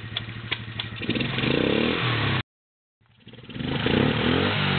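Small ATV engine idling with a few clicks, then revved up as the stuck quad tries to back out of the mud. The sound cuts out completely for about half a second in the middle, then the revving goes on.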